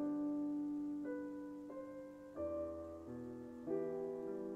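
Soft, slow background piano music: sustained notes, with a new note or chord coming in every second or so.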